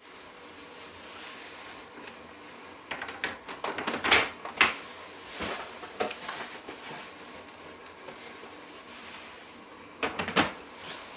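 Plastic trays of a Doramini food dehydrator being set down and stacked, giving a run of light clattering knocks a few seconds in. Near the end the plastic lid is placed on top with a couple more knocks.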